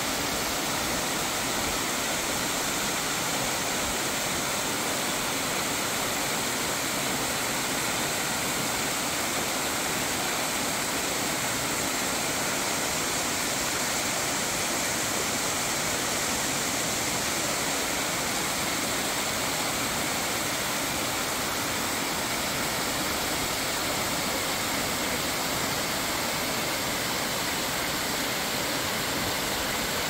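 Water running and splashing down the rocks beneath an ice fall, a steady rush with no breaks.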